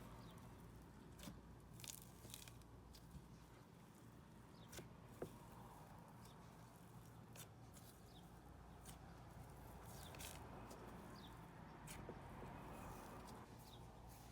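Faint soft crackling and tearing of cloud cream slime being stretched and squished by hand, with scattered small clicks.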